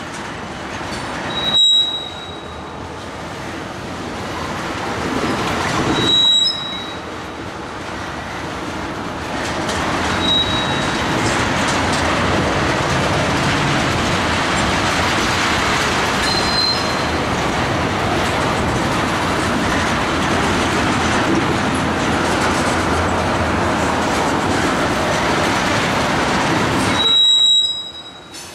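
Ethanol tank cars of a freight train rolling past: a steady noise of steel wheels on rail, with brief high-pitched wheel squeals about five times. The noise drops away suddenly near the end.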